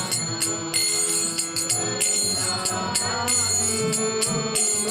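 Devotional Bengali hymn (kirtan) sung slowly over a sustained drone, with small hand cymbals (kartals) ringing in a steady repeating rhythm.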